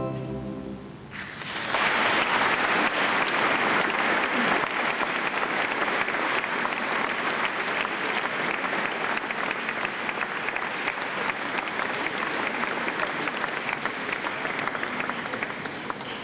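The final held chord of the choir and wind band dies away, and about a second in the audience breaks into applause. The clapping stays steady and eases off a little near the end.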